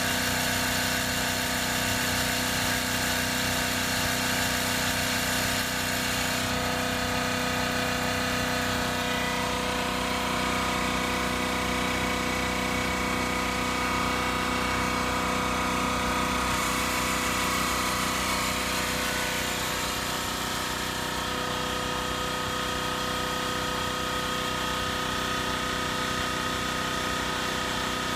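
Makita AC4000 air compressor running, a steady motor-and-pump drone with a constant hum. The loudness eases slightly about twenty seconds in.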